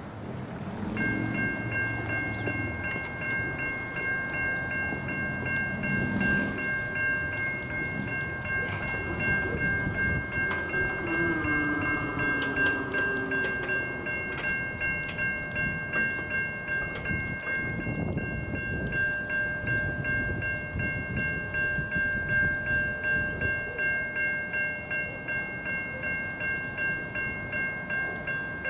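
Siemens Type 3 electronic crossing bells ringing as the crossing activates, starting about a second in and going on steadily at about two strikes a second, with a low rumble beneath them in the first half.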